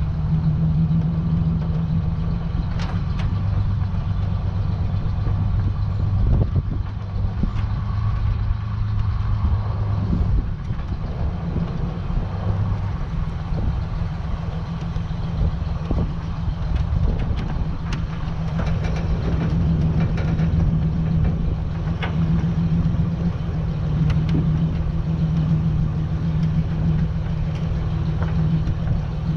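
Vehicle engine running steadily at low speed while the bed loaded with scrap bicycles and mower parts is driven along, with scattered knocks and rattles from the load.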